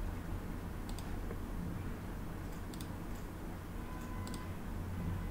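A few faint computer mouse clicks: one about a second in, then quick double clicks near the middle and near the end, over a steady low hum.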